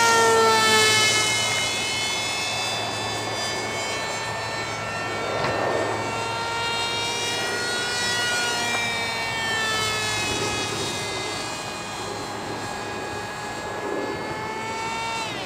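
RC blended-wing lifting-body model plane's motor and propeller whining in flight. The pitch slides down as it passes close near the start, then rises and falls as it flies around; it is loudest in the first second.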